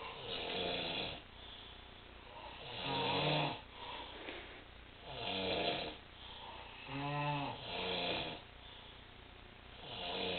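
Snoring, repeating every two to three seconds: rattling, rumbling snores alternating with breathier, hissing ones.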